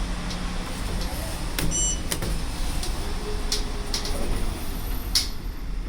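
Vimec platform lift's electric drive running steadily as the platform travels, a low hum with a few faint clicks.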